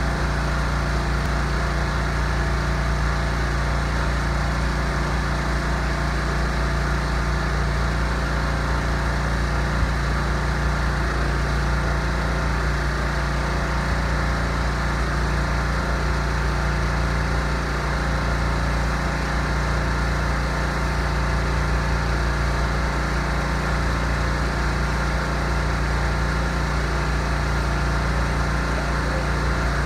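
Small engine of a steam pressure cleaner running steadily at constant speed while the wall is sprayed.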